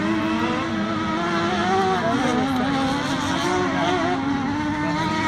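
Several autocross cars racing on a dirt circuit, their engines revving up and down at once, with overlapping pitches rising and falling as they accelerate and lift off.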